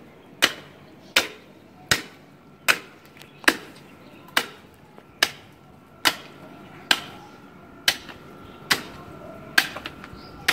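Heavy tahra cleaver chopping through the neck bones of a butchered sheep or goat carcass: thirteen sharp, evenly paced blows, a little more than one a second.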